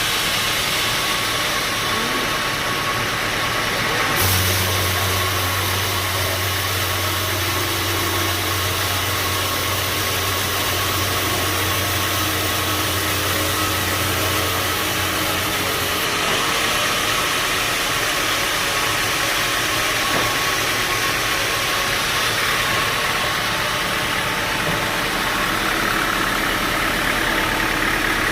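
Sawmill machinery running steadily, with a low hum that comes in about four seconds in and stops near the middle.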